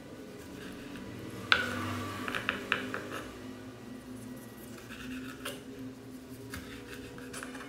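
Kitchen knife cutting through tomato and knocking on a wooden cutting board: a run of crisp chopping strokes, the sharpest about one and a half seconds in, with more strokes about two to three seconds in, around five seconds and near the end.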